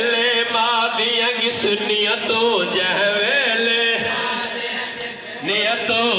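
A man chanting a Saraiki noha, a mournful Shia lament, in a long, wavering, melodic line. The voice dips briefly about five seconds in, then comes back in.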